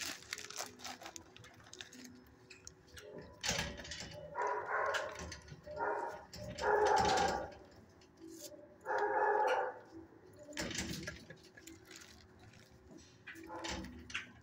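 Shelter dogs barking in the kennels: three drawn-out, pitched barks through the middle, the loudest about halfway, with scattered knocks between.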